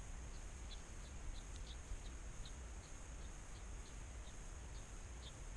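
Faint outdoor ambience of insects and small birds: short high chirps a few times a second, unevenly spaced, over a steady high insect drone and a low rumble.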